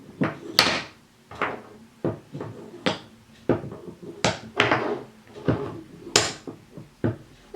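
Small wooden toy pieces knocking against each other as they are stacked and moved around. There are about a dozen uneven knocks, each followed by a short scrape or rattle.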